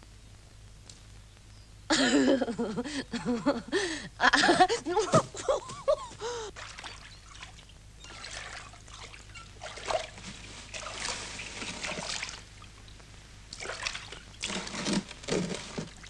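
Water splashing and sloshing, with a voice crying out loudly in quick rising and falling shouts about two seconds in, then uneven bursts of splashing.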